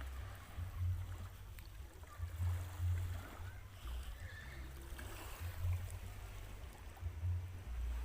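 Wind buffeting the microphone in irregular low rumbles, over a faint hiss of water.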